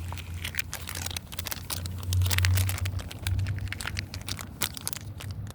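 Crinkling and rustling of packaging being handled, with many irregular clicks and a low rumble of handling noise, loudest a little after two seconds in.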